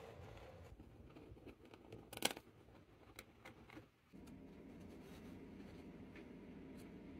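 Faint scraping and rustling of a flat scraper pushing loose black gunpowder grains across a board, with a few small clicks, the sharpest about two seconds in. About four seconds in the background changes to a steady low hum.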